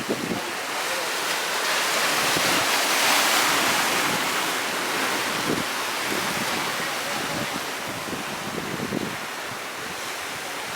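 Sea surf breaking and washing on the shore, swelling to its loudest about two to four seconds in and then easing off. Wind buffets the microphone in low rumbles.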